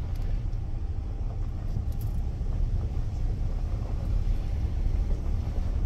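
Pickup truck driving along a gravel road, heard from inside the cab: a steady low rumble of engine and tyres.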